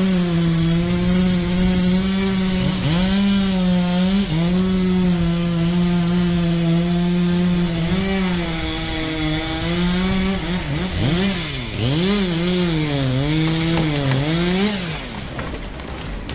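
Chainsaw engine running at high revs as it cuts wood, its pitch dipping briefly twice under load. Near the end the revs rise and fall several times before the saw drops away about fifteen seconds in.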